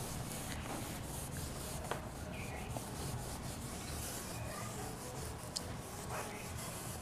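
A cloth steadily rubbing on a whiteboard, wiping off marker drawings.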